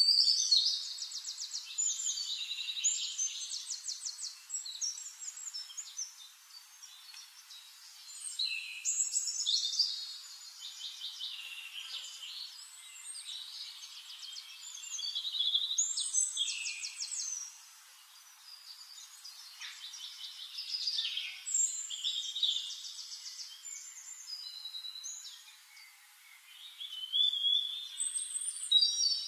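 Songbirds singing: high phrases of fast trills and whistled notes, a few seconds each, with short pauses between.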